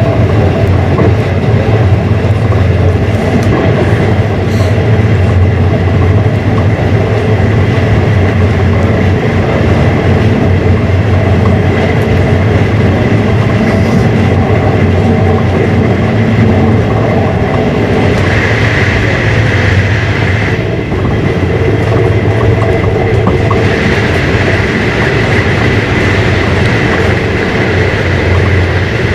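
Running noise of a moving passenger train heard from inside the carriage: a loud, steady low rumble of wheels on the rails. A higher hiss grows louder twice in the second half, with a brief dip between.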